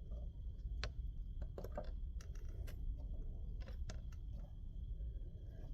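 Scattered light clicks and taps, irregular and about a dozen in all, from handling wiring at an electric water heater's element terminals, over a steady low hum.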